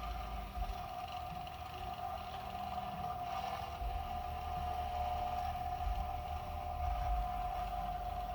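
The motor and gear train of an American Flyer #779 oil drum loader running steadily, a constant whine over a low hum, its gear reduction freshly cleaned of hardened grease and relubricated.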